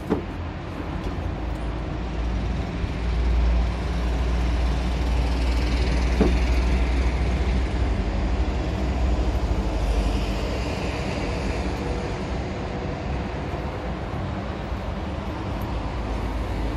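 Steady low rumble of heavy vehicle engines and traffic, swelling a few seconds in, with a hiss that sweeps down twice. Two light clicks from hand work on the truck's engine, one at the start and one about six seconds in.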